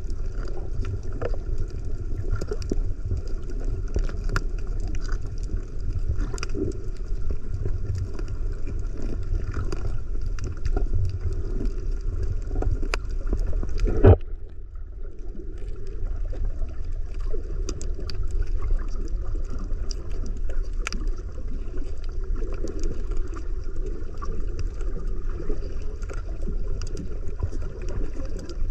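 Underwater sound while snorkelling over a coral reef: a steady, muffled low rumble of water with scattered faint crackles and clicks. A single sharp knock about halfway through, after which the sound dips briefly.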